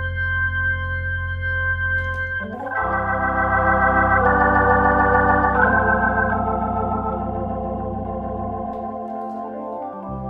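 Hammond T500 tonewheel organ playing sustained chords of a slow pop ballad over low bass notes. A fuller, louder chord comes in about two and a half seconds in, then the sound thins and softens, the bass drops out briefly, and a new chord enters near the end.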